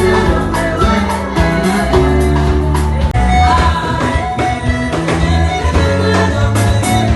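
A song playing, with a steady drum beat, sustained deep bass notes and a singing voice.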